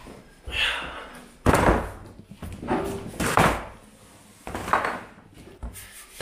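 A large, heavy cardboard monitor box being lifted and set down on a table: cardboard scraping and rubbing with several dull thuds, the loudest and deepest about a second and a half in.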